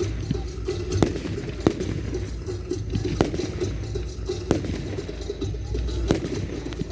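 Fireworks display: several separate sharp bangs, a second or more apart, over a continuous low rumble.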